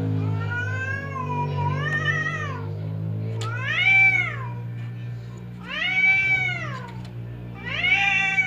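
Domestic cats caterwauling in a face-off: four long, drawn-out yowls, each rising and then falling in pitch, the loudest about four seconds in. A steady low hum runs underneath.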